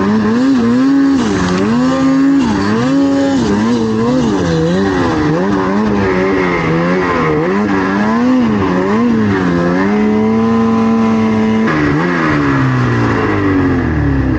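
Snowmobile engine revving up and down over and over as the throttle is worked, held steady for a moment about ten seconds in, then winding down near the end.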